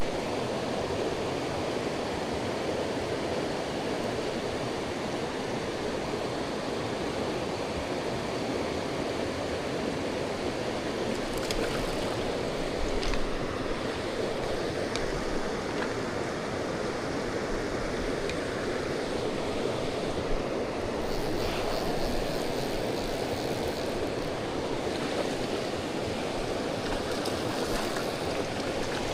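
Steady rush of the Tellico River, a mountain trout stream, flowing continuously.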